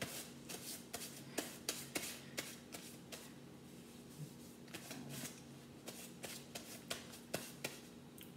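Thin clear plastic crinkling and crackling as it is handled and crumpled, in two spells of sharp crackles with a short lull between them. A low steady hum runs underneath.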